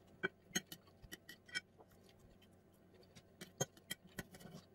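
Faint, irregular clicks and taps of a metal fork and knife against a plate while cutting pieces of braised pork.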